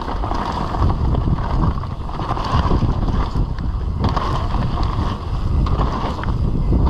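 Mountain bike riding fast down a dirt jump trail: wind rushing over the microphone, with a steady rumble from the tyres on the dirt.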